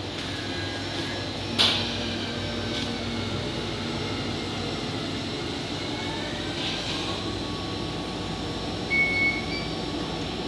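Steady running hum of a Screen PlateRite 8600SL computer-to-plate platesetter and its processing unit, with one sharp click about a second and a half in and a short high beep near the end.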